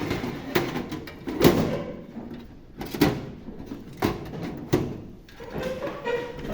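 Knocks and scraping of a computer power supply unit being set back into the metal PC case, with about five sharp knocks.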